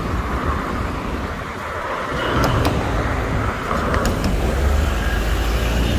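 Cars driving past close by on a busy multi-lane street, one after another, their tyre and engine noise swelling about two seconds in and again near the end.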